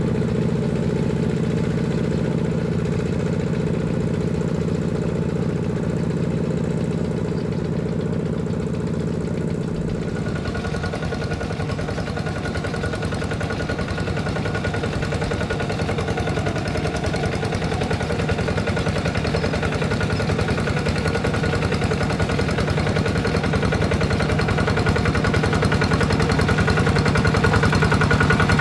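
Single-cylinder diesel engines of walk-behind two-wheel tractors running steadily under load with a fast, even beat as they plough wet paddy mud. The sound changes abruptly about ten seconds in and grows louder near the end as a tractor comes closer.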